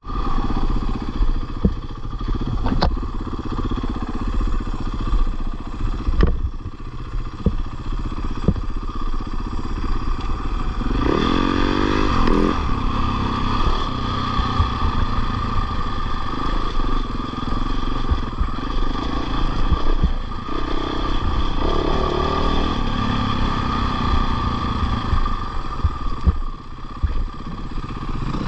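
Dirt bike engine running while the bike is ridden over rough, stony ground. It rises in pitch as it is revved, about eleven seconds in and again about twenty-one seconds in, with scattered knocks and clatter from the bumpy terrain.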